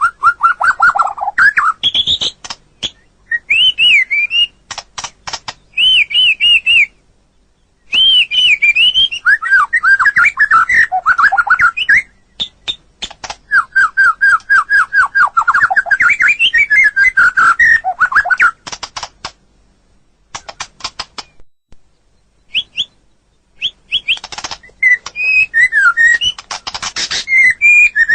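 White-rumped shama singing: a varied run of clear whistled phrases and fast series of repeated notes, mixed with sharp clicking notes, broken by a short pause about seven seconds in and a longer one past the middle.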